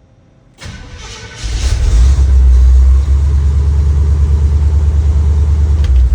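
Chevy C10 pickup's engine, fitted with a Holley Sniper EFI system, cranks briefly and catches about a second and a half in, then runs steadily. It no longer misfires: the distributor fault that had made the EFI drop its tach signal has been put right.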